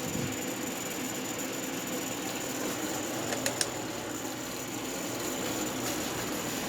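1975 Westinghouse Custom 20 dehumidifier running on its fan motor alone, a steady hum with a faint high whine; the compressor is off, having cut out after short-cycling. A couple of small clicks about halfway through.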